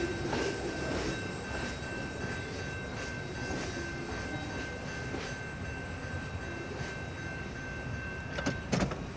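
Railroad crossing warning bell ringing about one and a half strikes a second while the gates are down, over the low rumble of a train. The bell stops about eight and a half seconds in, followed by a few sharp clicks.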